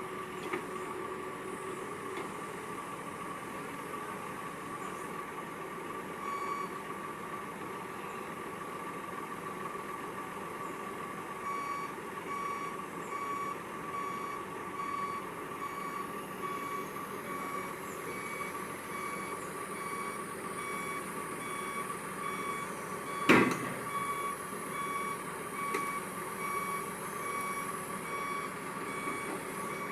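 Excavator engine running while its travel alarm beeps in a quick steady series. One sharp, loud clank of metal comes late on.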